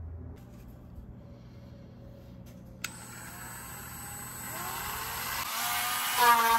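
Small handheld power tool switched on about three seconds in, its motor whine rising in pitch and growing louder as it speeds up, brought out as a drastic measure against a stuck screw with a stripped head.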